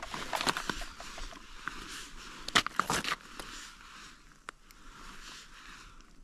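Irregular crackles and clicks from handling a tip-up and hand-pulling fishing line beside a hole in chipped lake ice, loudest about half a second in and again near three seconds, then fainter.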